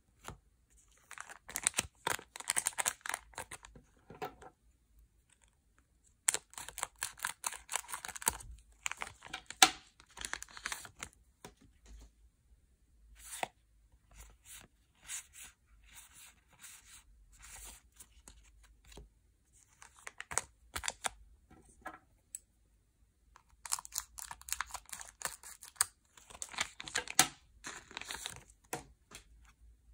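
Yu-Gi-Oh booster packs' foil wrappers being torn open, in three stretches of crisp crinkly tearing. Between them come light clicks and rustles of the cards being handled.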